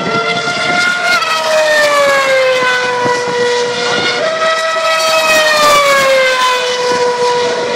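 Formula One cars' 2.4-litre V8 engines running at high revs as they pass on the circuit, several cars one after another, their high-pitched whine dropping in pitch as each goes by.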